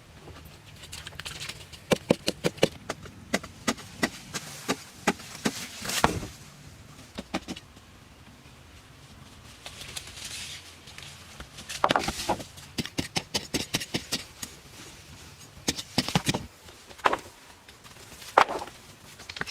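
Irregular sharp knocks and clicks, like hand-tool work, with a few louder clusters of strikes and a short scraping hiss about ten seconds in.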